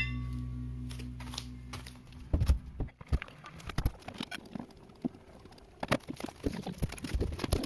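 A held chord of background music fades out, then a run of irregular small clicks and taps follows, a few loud ones standing out.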